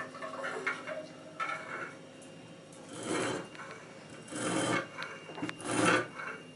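Abrasive stone of a guided knife-sharpening jig drawn along the edge of a serrated knife. A few light clinks and scrapes come first, then three strokes of stone on steel, about one every second and a half.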